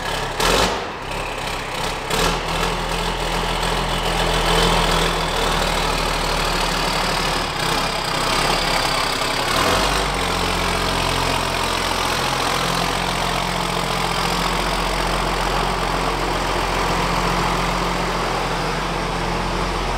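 Ford 8630 Dual Power tractor's six-cylinder turbo diesel running steadily as the tractor is driven out of a shed, its note shifting about halfway through and coming close near the end.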